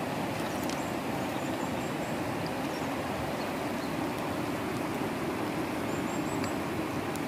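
Steady rushing of a flowing river, with a few faint clicks of gravel and stones as hands dig a small seep hole in the riverbank sand.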